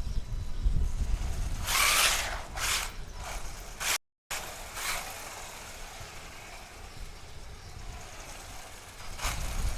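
WLtoys 144001 RC car driving at full speed, its motor and drivetrain running quietly after the differentials were packed with thick grease, even with a defective front diff; wind rumbles on the microphone throughout. The audio cuts out briefly about four seconds in.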